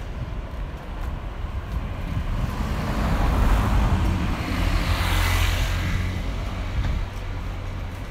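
A motor vehicle passing close by on a city street, its engine and tyre noise swelling to a peak about halfway through and then fading, over a steady low traffic rumble.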